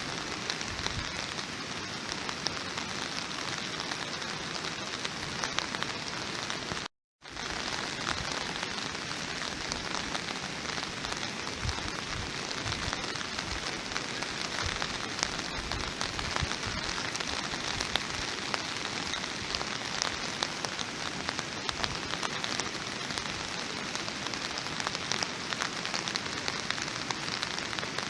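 Steady rain falling on a surface: an even hiss full of fine, dense drop ticks. The sound cuts out completely for a split second about seven seconds in, then resumes unchanged.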